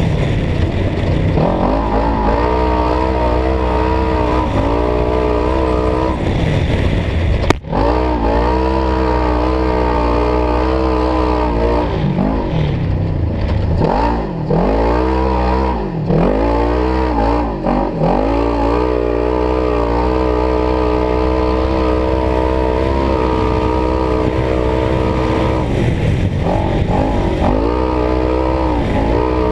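Supercharged Polaris RZR side-by-side engine running hard at high revs under acceleration, with the revs dropping briefly and climbing back up again several times as the throttle is lifted and reapplied, heard from inside the open cab.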